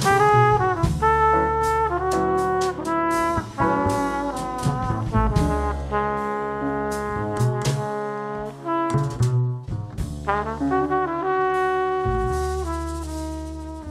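Instrumental background music led by brass, with a moving melody over a bass line, fading out near the end.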